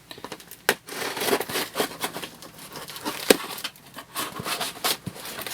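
Headphone retail packaging being opened by hand: rustling, crinkling and tearing, with many sharp clicks and knocks.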